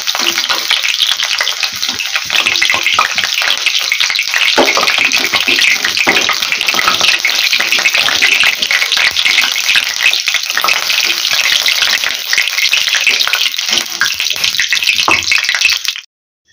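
Cauliflower florets frying in hot mustard oil in a wok, a steady dense sizzle and crackle, with the clicks and scrapes of a steel spatula against the pan as the fried florets are lifted out. The sound cuts off suddenly just before the end.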